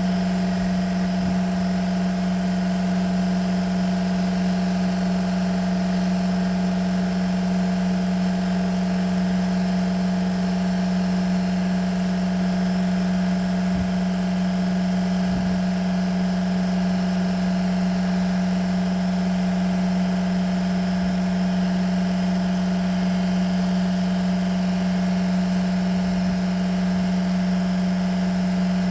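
An electric power tool's motor running at one steady speed, with a constant hum and a high whine above it.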